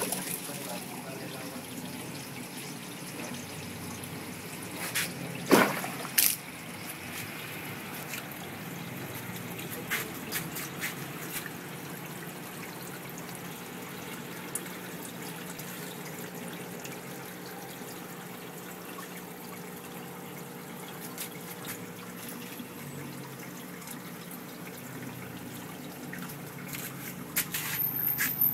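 Aquarium water trickling and dripping steadily, with scattered sharp clicks and a louder pair of knocks about five and a half to six seconds in.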